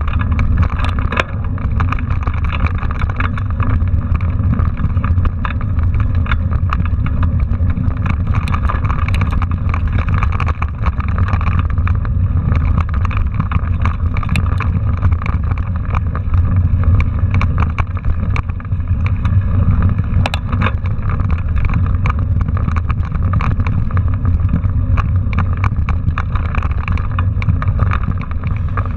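Mountain bike rolling over a rough, dry dirt trail, heard from a handlebar-mounted camera: a loud, steady low rumble of wind and vibration on the microphone, with frequent small rattles and clicks from the bike and loose gravel.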